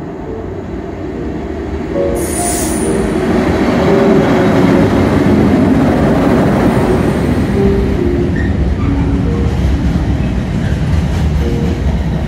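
Container freight train hauled by Class 90 electric locomotives running through a station at speed: a loud, steady rush of wheels and container wagons on the rails. It swells as the locomotive arrives about two seconds in, with a brief high-pitched tone at that moment.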